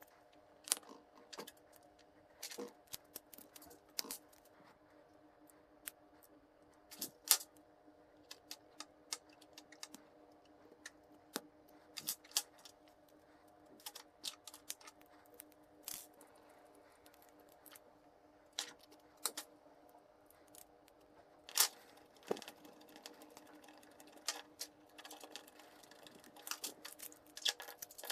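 Small metal and plastic parts clicking and tapping irregularly as they are handled and fitted together by hand: a miniature metal brake caliper and disc rotor with 3D-printed plastic mounts. A faint steady hum sits beneath the clicks.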